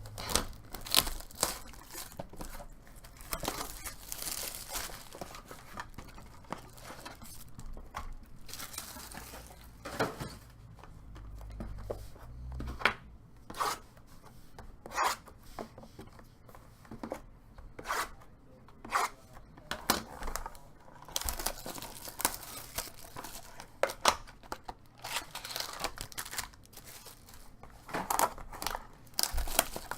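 Trading card box and pack wrappers being torn open and crinkled by hand: irregular tearing and rustling of plastic and paper, with sharp rips scattered throughout.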